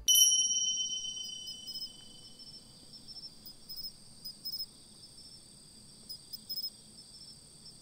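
Crickets trilling steadily at a high pitch, with short chirps pulsing over the trill. At the very start a single bright ringing tone sounds and fades away over about two seconds.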